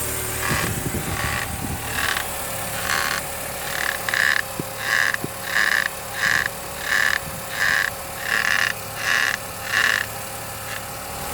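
Suspension of a New MINI creaking over and over, about one creak every two-thirds of a second, louder from about four seconds in: the abnormal suspension noise the owner is showing. A steady low mechanical hum runs underneath.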